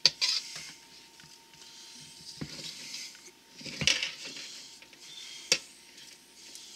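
A knife tossing chopped salad in a stainless steel mixing bowl: the leaves rustle and the blade clinks against the metal bowl four times, a second or so apart.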